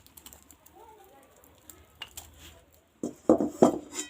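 Kitchen vessels and cups being handled while tea is poured: light scattered clicks and taps, then several loud clinks and knocks about three seconds in.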